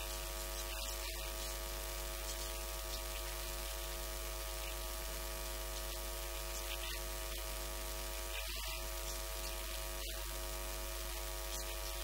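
Steady electrical mains hum: a low drone with a stack of steady buzzing tones above it and an even hiss over the top.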